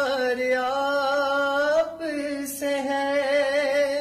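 A young man sings a naat, an Urdu devotional poem in praise of the Prophet, solo. He holds long, ornamented notes with a wavering vibrato, in phrases broken by two short breaths about two seconds in and again shortly after.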